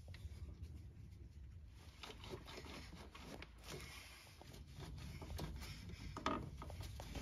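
Faint scraping and light clicks of a steel trailing-arm bush carrier and its limiter spacers being handled and set into place by gloved hands, with a few sharper ticks about six seconds in.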